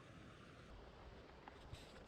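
Near silence: faint outdoor background noise, with one small click about three quarters of the way through.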